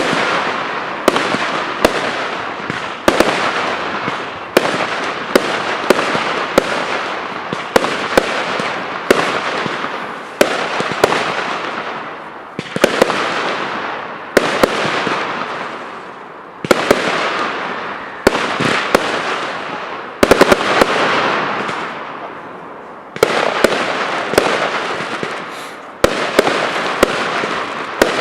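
Professional aerial fireworks display: shells bursting in a steady sequence, roughly one sharp bang a second, each followed by a dense rush of noise that fades before the next.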